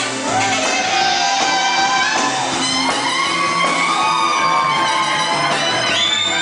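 A live band with saxophone, keyboard, drum kit, double bass and electric guitar playing a song, with a voice singing over it and sliding between notes; a strong high note is held near the end.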